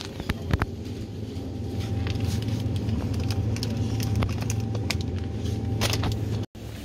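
Steady low hum of a supermarket refrigerated display case, with scattered light clicks and rustles from handling packs. The sound drops out completely for a moment near the end.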